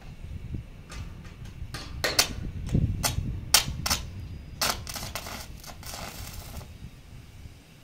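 Electric arc welding of hollow steel section onto an old roof frame: the arc strikes in a run of sharp crackling pops, then holds as a steady sizzling crackle for about a second and a half before cutting off.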